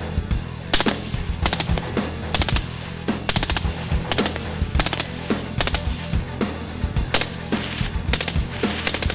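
Suppressed rifle firing short full-auto bursts of a few rounds each, about one burst a second, through a Rugged Razor 762 suppressor. Background music with a steady bass line runs underneath.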